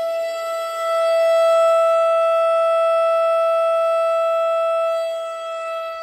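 Federal Signal STH-10 rotating outdoor warning siren sounding its steady-tone alert, one unchanging high tone. It swells louder about a second in and eases off near the end as the rotating horn sweeps past.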